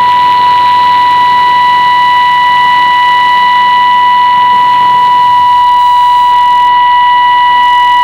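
Steady thousand-hertz test tone of a shortwave test transmission, sent at −10 dBFS and received off the air, with fainter overtones above it and a hiss of band noise underneath.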